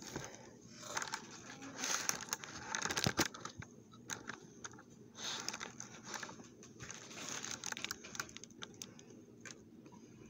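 Handling noise as a wooden cigar box is opened on crinkling packing paper: irregular rustling with a few sharp clicks and knocks from the box and its lid, busiest in the first three seconds.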